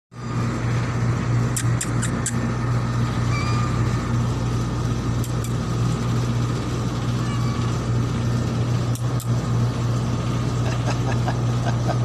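Steady low mechanical hum of a running motor, with a cluster of sharp clicks about one and a half to two seconds in and two more around nine seconds.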